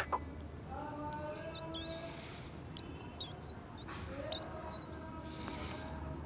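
House sparrows chirping: three short bursts of quick, high twittering calls.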